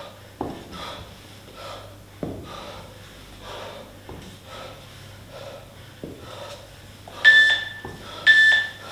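Heavy, quick breathing of a man doing starfish crunches on an exercise mat, with a couple of dull thumps of his body on the mat. Near the end an interval timer beeps twice, about a second apart, counting down the end of the work period.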